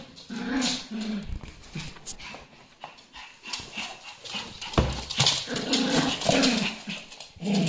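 Dog making short, pitched whining and grunting sounds, with a couple of sudden sharp noises.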